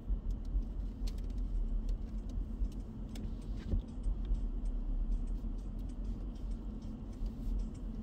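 Car driving on a cleared winter road: a steady low rumble of engine and tyres, with scattered light ticks and clicks.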